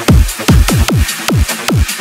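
Hardstyle/rawstyle electronic dance track driven by rapid kick drums, about four hits a second, each a pitch sweep falling steeply into deep bass.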